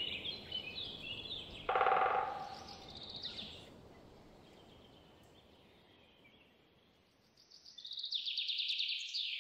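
Songbirds singing in a forest, with a brief louder, lower sound about two seconds in and a rapid, loud trill of quick repeated notes near the end that falls away.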